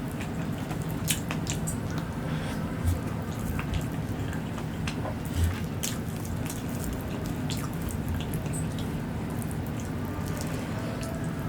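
Close-miked eating sounds of a mukbang: scattered wet clicks and smacks of chewing, a few sharper ones standing out, over a steady low hum.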